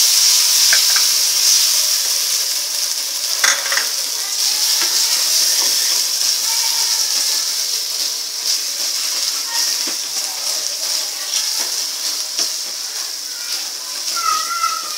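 Onion-tomato masala with red chilli powder and turmeric sizzling in oil in a kadhai, stirred with a spatula that scrapes and clicks against the pan. There is one sharp knock about three and a half seconds in, and the sizzle eases slightly toward the end.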